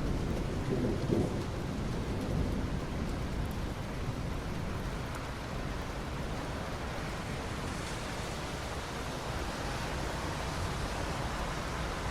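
Steady rain with a low thunder rumble that is strongest in the first couple of seconds. The rain hiss grows brighter in the last few seconds.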